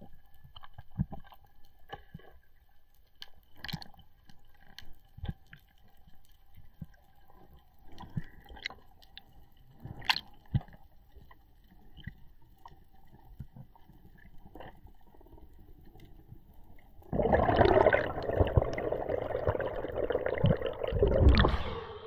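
Underwater reef ambience heard through a mask-mounted camera: faint scattered clicks and crackles. About three-quarters of the way through, a sudden loud rush of water and splashing as the diver breaks the surface, lasting to the end.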